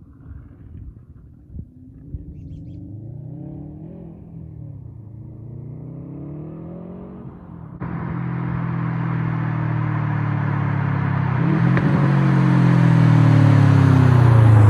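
Subaru WRX STI turbocharged 2.5-litre flat-four through a straight-through catback with no resonator or mufflers, approaching. It is faint at first, its pitch rising and falling as the revs go up and down, then suddenly much louder about eight seconds in and building steadily as the car closes in.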